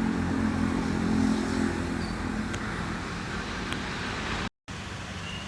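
A motor vehicle's engine hum: low and steady, swelling about a second in and then fading, broken by a sudden dropout near the end.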